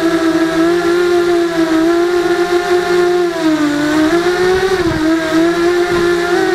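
FPV mini quadcopter's brushless motors and propellers whining steadily, the pitch dipping about halfway through and rising again as the throttle changes.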